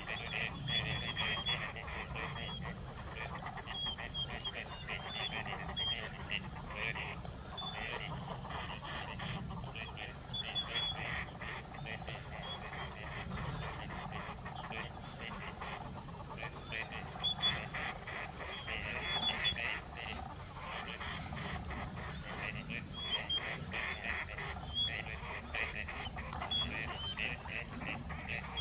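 Gadwall duck calls: a continuous run of short, rapidly repeated quacking calls, with a sharp louder note every few seconds.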